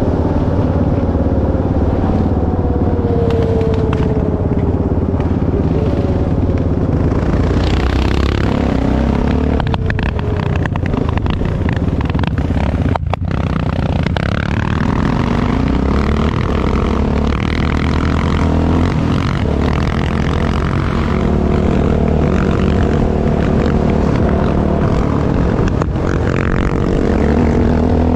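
Yamaha Raptor 660 ATV's single-cylinder four-stroke engine running while being ridden, its pitch rising and falling with the throttle.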